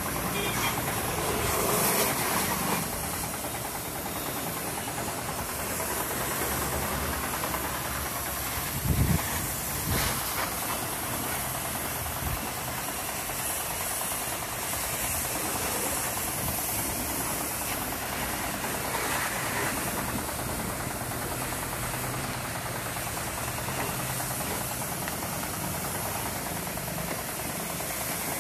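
Pressure washer jet spraying water onto a scooter: a steady hiss of spray over a low motor hum, with a couple of brief knocks about nine seconds in.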